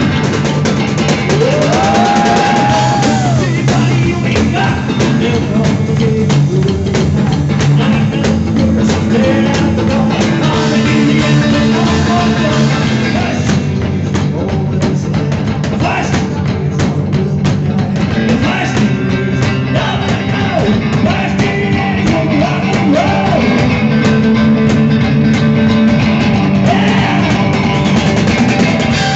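A rock and roll band playing loudly live, with a drum kit and a hollow-body electric guitar.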